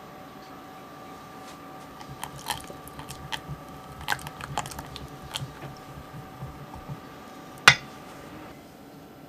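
Silicone-coated whisk stirring a thick, creamy no-bake cheesecake mixture in a glass Pyrex jug, with wet squishing and irregular clicks as the wires knock the glass. A single sharp clink comes near the end as the whisk is knocked against the jug.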